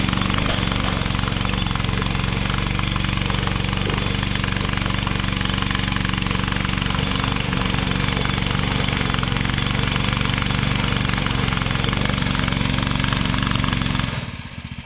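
Side-by-side utility vehicle's engine running steadily at an even speed, close and loud. It drops away sharply near the end.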